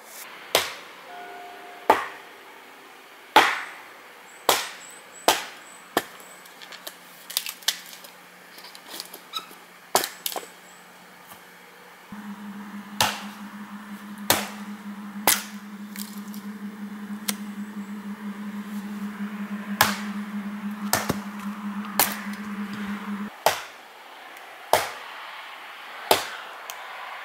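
Axe chopping wood: a long run of sharp, separate strikes, roughly one a second. A low steady hum comes in near the middle and stops a few seconds before the end.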